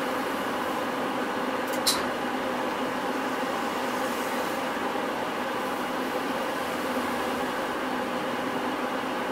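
Cabin noise inside a Hino Rainbow non-step city bus: a steady drone from the bus with no change in pitch, and one brief sharp click about two seconds in.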